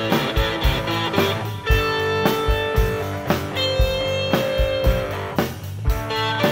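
Instrumental rock music between sung lines: electric guitar holding long notes over a steady drum beat.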